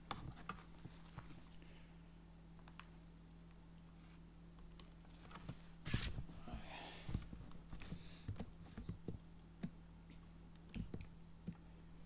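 Faint, scattered clicks and fumbling of a phone being plugged in and a computer being worked, with a louder knock about six seconds in, over a low steady hum.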